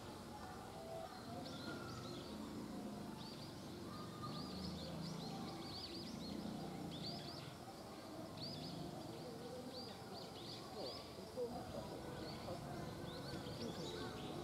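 Small birds chirping again and again in short high notes, over a low background murmur.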